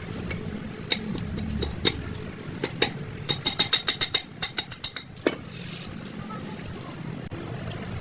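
Metal-on-metal clinks from tools and clutch parts: a few separate clicks, then a fast run of ringing metallic taps, about seven or eight a second, that ends about five seconds in. Low steady hum underneath.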